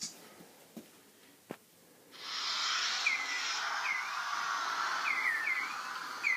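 A nature-sounds ringtone from a phone speaker starts about two seconds in: a steady hiss with a few short chirps over it. Before it there is a lull with a single click.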